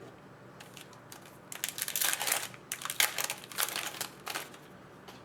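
Foil wrapper of a trading-card pack crinkling as it is torn open and handled, in a run of crackling rustles from about one and a half seconds in until near the end.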